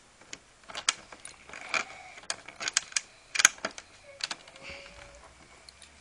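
Hand screwdriver driving a screw into a monitor stand's metal bracket: irregular small metallic clicks and ticks, with one sharper click about three and a half seconds in.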